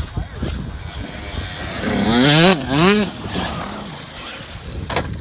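Radio-controlled off-road truck driving on dirt, its motor revving up and down twice about halfway through, with a sharp knock near the end.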